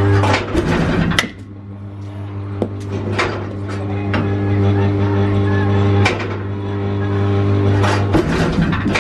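Baseball bat hitting balls in a batting cage: several sharp knocks, a cluster about a second in and two more near the end. Under them a steady low hum, weaker in the middle.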